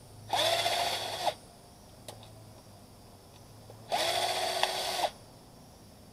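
Cordless drill run twice, about a second each, its bit on a screw in a computer power supply's metal case; each time the motor spins up and winds back down.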